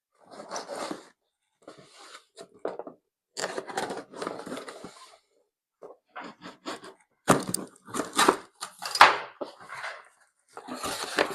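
A cardboard box being opened and unpacked: packing tape tearing and packaging scraping in irregular bursts, with a few sharp knocks in the second half.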